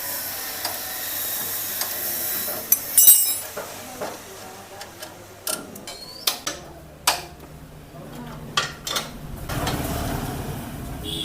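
Metal tools and parts clinking and knocking as a motorcycle drum brake is taken apart to remove the brake shoes, with irregular sharp clicks throughout and a hiss in the first few seconds.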